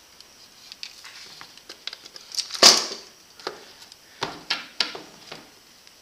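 Rustling and knocking as parts are handled in a cardboard box, with scattered clicks and one louder knock a little under three seconds in.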